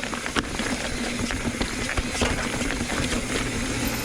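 Mountain bike clattering over a rocky trail: a steady rush of noise dotted with rapid, irregular clicks and knocks from the bike and tyres on rock.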